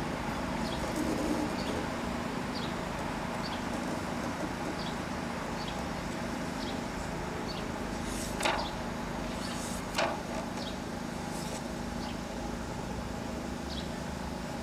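Outdoor ambience: a steady low hum with short high chirps of a small bird repeating about once a second, and two brief sharp sounds about eight and ten seconds in.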